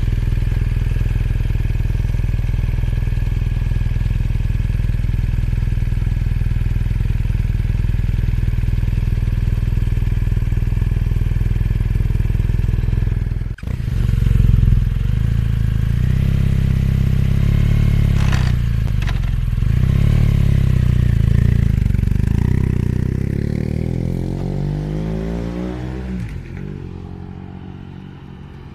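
BMW R1200GS boxer twin running through a newly fitted Chinese aftermarket exhaust, a steady, loud exhaust note. It cuts off for an instant about halfway through, comes back, and grows quieter toward the end.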